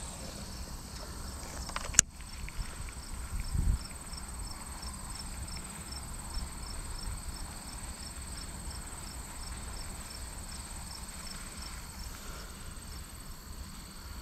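Insects chirping in the grass: a steady high drone with a regular chirp about three times a second. A single sharp click about two seconds in.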